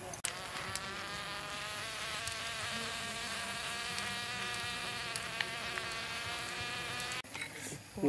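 Lake snails grilling on a charcoal grill, with steam escaping their shells as a steady, slightly wavering high whine that cuts off abruptly near the end.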